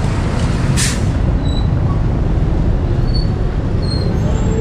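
Steady street traffic rumble, with a short sharp hiss about a second in and a few faint high chirps.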